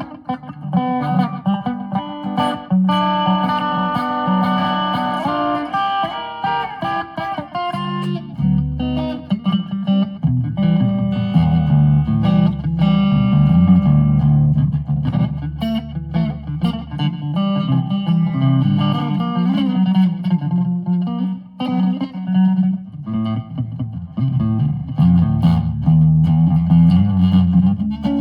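Electric guitar played in a country style with a twangy tone, picking a continuous run of single notes and chords.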